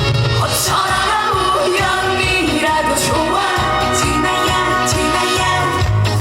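Trot song performed live: a loud band accompaniment with a steady beat and a sung melody over it.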